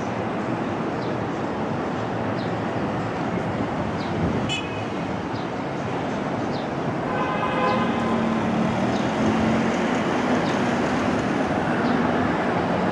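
Steady city and elevated-railway noise as a New York City subway 1 train of R62-series cars approaches along the elevated curve, its running hum coming in from about eight seconds on. A short horn toot sounds about seven seconds in.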